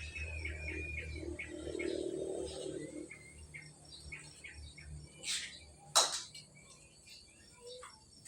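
Small birds chirping in short, repeated calls over a low hum that fades out about three seconds in. A single sharp knock about six seconds in is the loudest sound.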